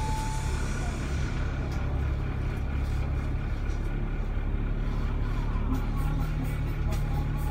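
Alexander Dennis Enviro500 MMC double-decker bus heard from inside: a steady low engine hum with road and cabin noise as the bus slows to a stop and idles. A light regular ticking comes in over the last couple of seconds.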